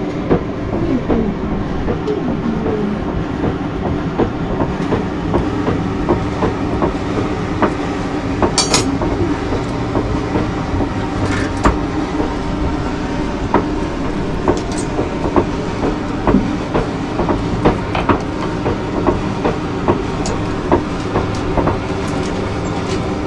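A steady mechanical rumble with several steady low tones, overlaid by scattered light clicks and knocks.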